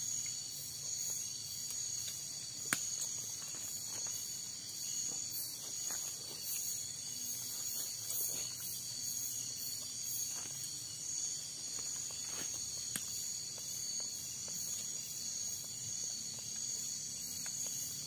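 Forest insect chorus at night: crickets and other insects keep up a steady high-pitched trilling, with a higher call pulsing about twice a second above it. A few faint clicks and rustles come through, the sharpest about three seconds in.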